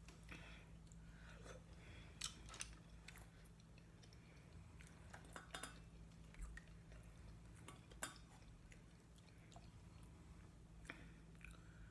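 Quiet close-up chewing and lip-smacking from someone eating boiled seafood, with a dozen or so short, sharp wet clicks scattered through it. A steady low hum sits underneath.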